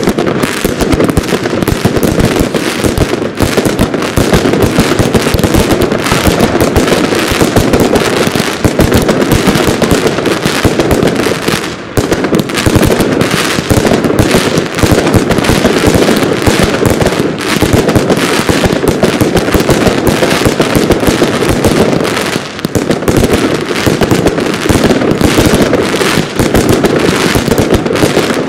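A 100-shot Jorge Nemezis category 3 (F3) firework battery firing: a rapid, almost unbroken stream of loud shots and bursts, with two short lulls.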